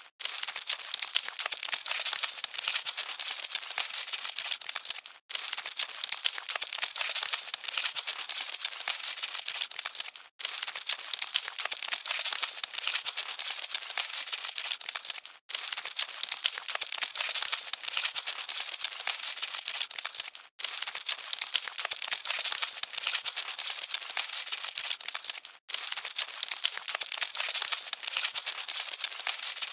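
Cockroaches scuttling: a dense, dry crackle of many tiny clicks and rustles, looped, with a brief dropout about every five seconds.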